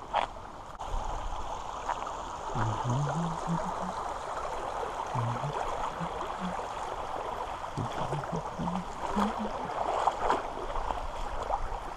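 Shallow creek water running and gurgling over rocks.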